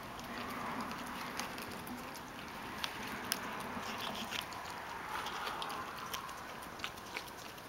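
Pot-bellied pig eating from a plastic bowl: chewing and rooting through the food, with irregular sharp clicks of snout and food against the bowl.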